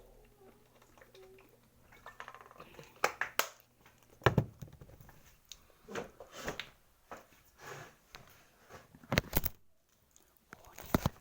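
Close-up eating sounds: chewing, with irregular sharp clicks and knocks like utensils or food against a plate.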